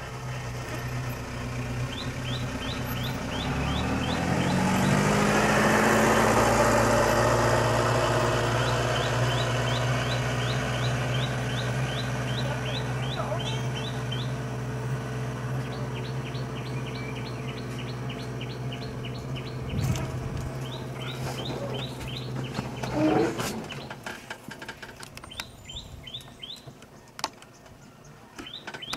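A vehicle engine idling, revving up a few seconds in and then running steadily until it dies away near the end. Over it a bird calls in quick runs of repeated high chirps, and a short, louder sound stands out shortly before the engine fades.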